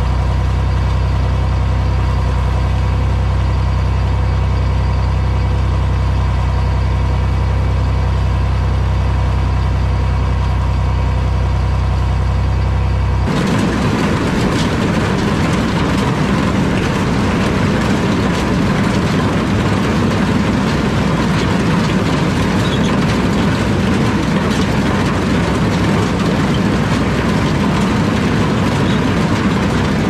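John Deere 4020 six-cylinder diesel tractor engine running steadily under load while pulling a corn picker. About a third of the way in it switches abruptly to the close, dense rattling and clattering of the New Idea two-row corn picker's mechanism working through the corn, with the diesel still running underneath.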